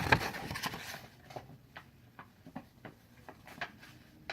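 Handling noise: a brief rustle, then scattered soft clicks and taps at irregular intervals, as of a paper invoice and packaging being handled.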